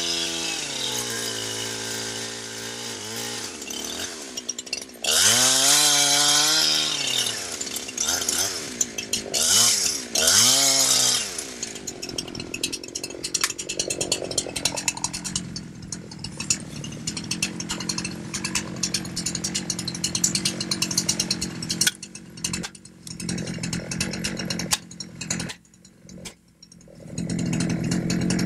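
Chainsaw cutting at full throttle in a plunge and back cut, its pitch dipping and recovering several times as the chain loads up in the wood. About twelve seconds in it settles to a quieter, steadier running. Several sharp knocks follow in the last few seconds, an axe driving a felling wedge into the back cut.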